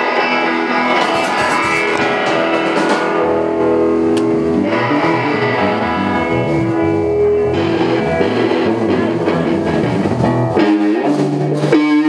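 Rock band playing live, guitars to the fore with some drums.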